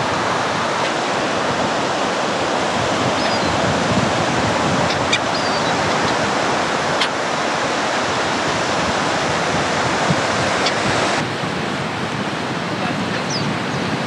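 Storm surf breaking and washing up a sandy beach, a steady loud rush with wind buffeting the microphone. A few faint short high cries from gulls come through, and the sound drops a little about eleven seconds in.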